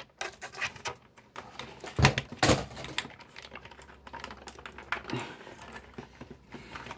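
Plastic and cardboard toy packaging being handled as an action figure is worked out of its box: irregular clicks, taps and light rustles, with two louder knocks about two seconds in.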